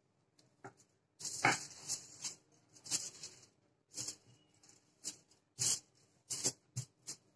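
Rolling pin working dough on a sheet of aluminium foil, the foil crinkling and rustling in short irregular bursts, loudest about a second and a half in.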